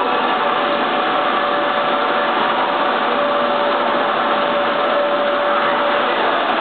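Steady, even rushing room noise of an aquarium hall, with a faint held hum running through it.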